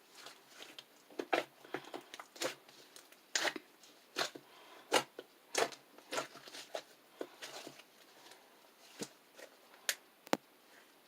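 Ice slime being pressed and squeezed by hand, giving irregular crackly, sticky pops and squishes, one or two a second.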